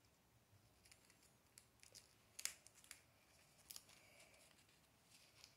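Faint, scattered sharp clicks and crinkles of hands handling an iPod nano's paper 'Start Here' card and its clear plastic wrapper; the loudest click comes about two and a half seconds in.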